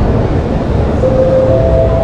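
Steady, loud low-pitched background noise of a large exhibition hall. About a second in, a public-address chime sounds two rising notes, the signal that an announcement is about to follow.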